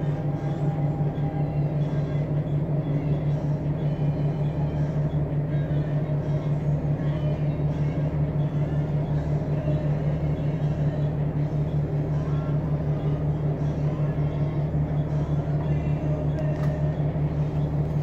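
The John Deere 8.1G natural-gas inline-six engine of a 2007 Blue Bird Xcel 102 CNG transit bus running with a steady low drone, heard from inside the passenger cabin.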